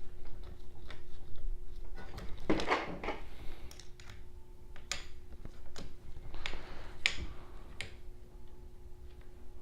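Metal printer parts and hand tools being handled during assembly of an Ender 3 3D printer: scattered clicks and clinks, with two short scraping rustles about two and a half and six and a half seconds in, over a faint steady hum.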